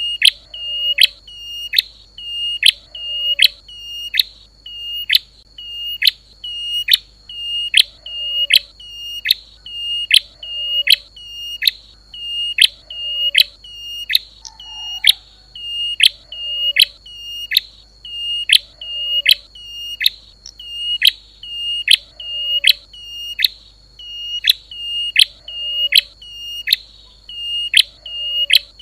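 Prenjak lumut (klawu) bird-lure call: a loud, sharp, high chip note repeated evenly about twice a second, each note dropping steeply in pitch, over a steady high-pitched whine.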